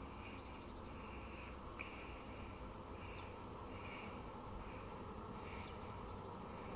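Insects chirping in the grass: a regular series of short, high chirps, a little more than one a second, over a steady low background noise, with one brief click about two seconds in.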